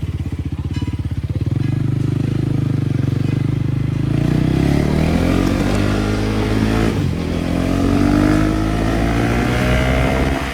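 KTM Duke 250 Gen 3's single-cylinder engine running at low revs, then accelerating with its pitch rising, dipping briefly about seven seconds in as it shifts gear, and climbing again.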